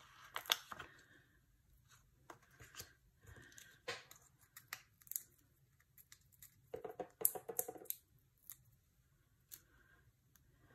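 Foam adhesive dimensionals being peeled off their paper backing sheet and pressed onto the back of a cardstock piece: faint, scattered crackles and rustles, with a denser run of peeling crackles about seven seconds in.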